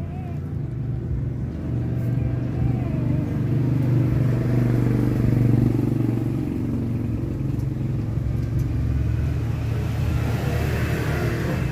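A motor engine running with a steady low hum, a little louder about four to six seconds in.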